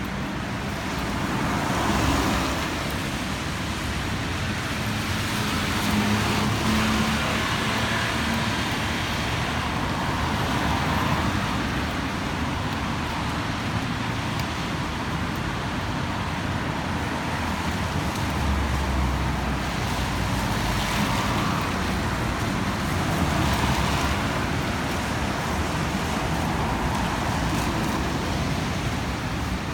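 Road traffic: vehicles passing one after another, each swelling and fading, over a steady low rumble.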